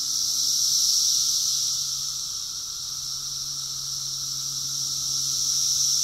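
Chorus of Brood X periodical cicadas: a loud, steady, high-pitched drone that swells slowly, loudest about a second in and again near the end.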